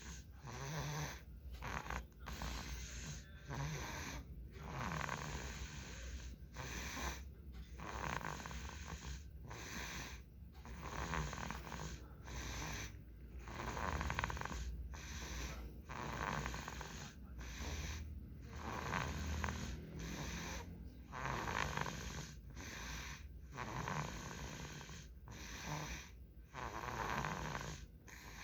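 A young child snoring, breath after breath with brief pauses between them.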